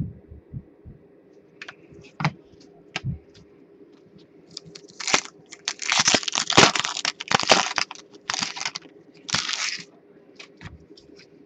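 A foil trading-card pack wrapper being torn open and crinkled by hand: a dense crackling rustle lasting several seconds from about the middle, with scattered light clicks of cards being handled before and after.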